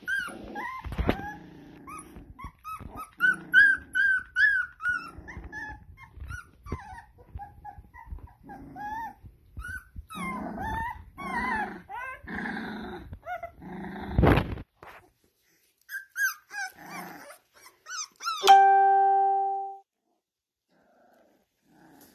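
A litter of three-week-old puppies squealing, yipping and whimpering in many short high-pitched cries, with stretches of whining and a couple of knocks. Near the end a single loud, steady ringing tone sounds for about a second and cuts off.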